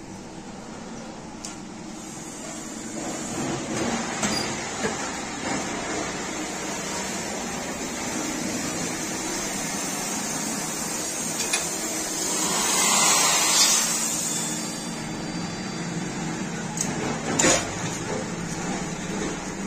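Plastic moulding machine in a small workshop running with a steady hum. A long hiss swells and fades near the middle, and there are a few sharp metallic clanks.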